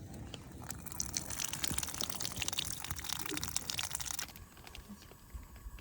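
Meat sizzling on a hot grill: a dense crackling hiss that stops suddenly about four seconds in.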